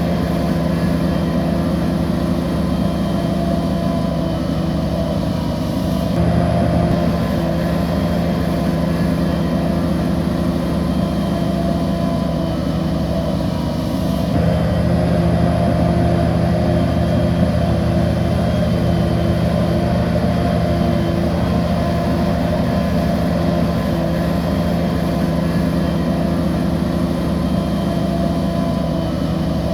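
Bulldozer's diesel engine running steadily under load. The engine note shifts and grows a little louder about six seconds in and again around fourteen seconds in.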